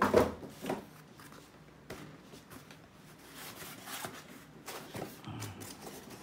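Packaging being handled: a sharp knock right at the start and a few small clicks. About halfway through comes a spell of rubbing and rustling as the foam packing blocks are pulled off the boxed solar charge controller.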